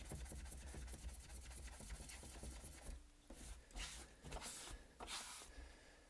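Damp magic eraser (melamine foam) scrubbing a Roomba's metal charging contacts: fast, faint back-and-forth rubbing for about three seconds, then a brief pause and a few slower strokes. This is the contacts being cleaned as a first fix for a Roomba that won't charge.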